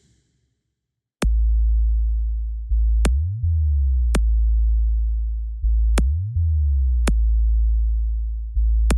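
Electronic bass test music for a low-frequency check: after about a second of silence, long, very deep synthesized bass notes, each starting with a sharp click, with short upward pitch slides between some of them.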